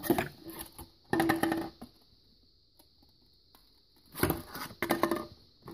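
Thin red plastic Solo cup crackling and crinkling as it is handled and flexed, in four short bursts of about a second each, two near the start and two about four seconds in.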